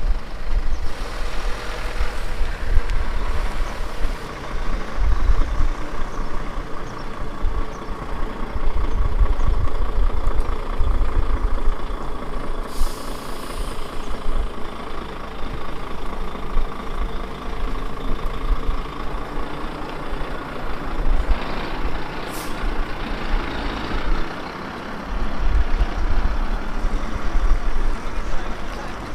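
A heavy vehicle's engine running, with a short hiss about thirteen seconds in and a sharp click about twenty-two seconds in.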